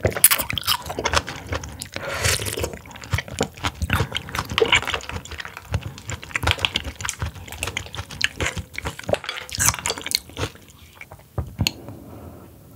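Close-miked ASMR eating of oysters: wet chewing and smacking mixed with slurping of cold broth, dense short clicks that thin out near the end.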